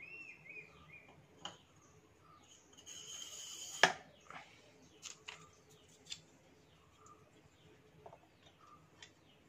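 Small clicks and knocks from submersible pump parts being handled and pressed onto the pump shaft, the loudest a single sharp clink about four seconds in, with a few lighter clicks after it. Birds chirp faintly in the background.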